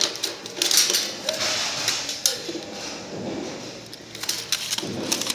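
Irregular clicks, taps and scraping as a sheet-metal cable tray and hand tools are handled while marking a cut line.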